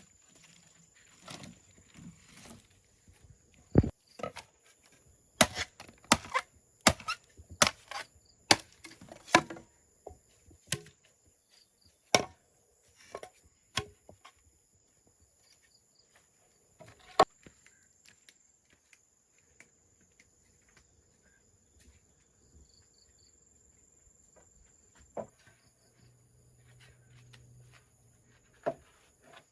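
Sharp strikes of a hand tool on wood, a quick run of blows about five to ten seconds in, then single blows spaced several seconds apart.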